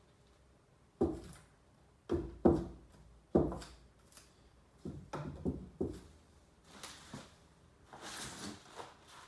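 A series of dull wooden knocks and thumps as cricket bats are handled and set down, with a brief rustle of packaging near the end.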